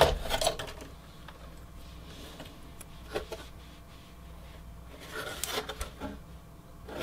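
Faint clicks, light knocks and rubbing from parts of a desktop computer being handled during disassembly, scattered at about three seconds in and again between five and six seconds in.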